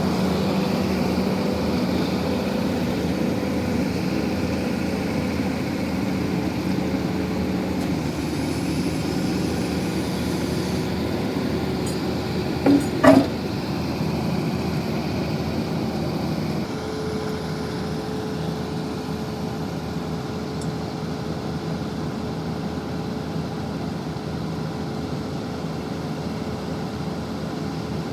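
XCMG 6800 horizontal directional drilling rig's engine running steadily with a low hum. Two short loud sounds come close together about halfway through, and a few seconds later the engine note drops a little and settles at a slightly different pitch.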